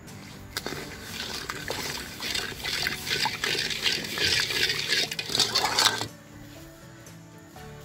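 A ladle stirring sugar and syrup in a large metal pan: liquid sloshing with scrapes and clinks against the pan. The stirring stops about six seconds in.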